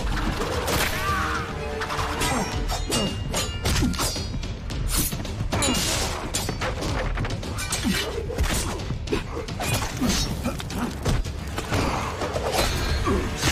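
Animated fight-scene sound effects: many sharp hits, clashes and crashes in quick succession, layered over music.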